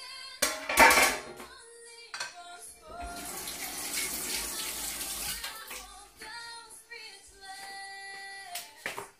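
Kitchen clatter of a glass roasting dish and utensils being handled, over background music. A few seconds of rushing noise, like water running, fall in the middle.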